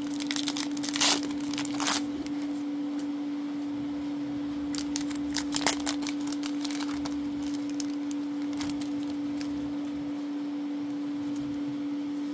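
Foil wrapper of a Magic: The Gathering booster pack crinkling and tearing as it is ripped open by hand. The crackle comes in bursts during the first two seconds and again about five to six seconds in, over a steady low hum.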